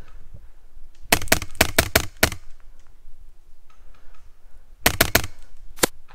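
Airsoft rifle firing: a rapid string of about seven sharp shots, then a quick burst of three and a single shot near the end.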